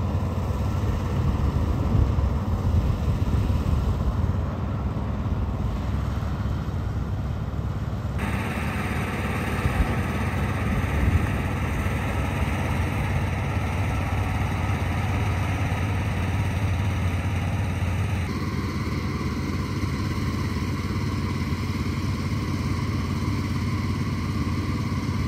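Golf cart running as it drives along, a steady low rumble that shifts abruptly in tone about 8 and 18 seconds in.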